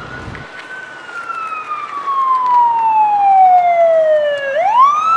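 Fire battalion chief's vehicle siren wailing as it approaches: one long tone falling slowly in pitch, then rising quickly again near the end.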